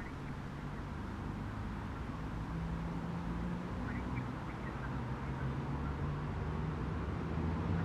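A motor running steadily with a low hum, and a few faint short squeaks about four seconds in.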